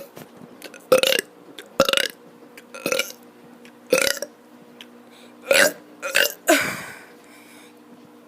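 A boy burping on purpose: a run of about seven short burps, roughly one a second, the last one longer.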